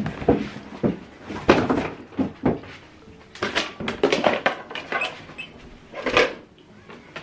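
Handling noises from unboxing an inkjet printer: a string of irregular knocks, clicks and rustling scrapes as the plastic printer body and its packing materials are moved about.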